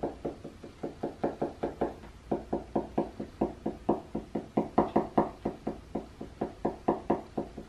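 A marker tip tapping dots onto paper on a tabletop, a quick run of light taps at about five a second with a short break about two seconds in. The dots stipple a cake-texture pattern.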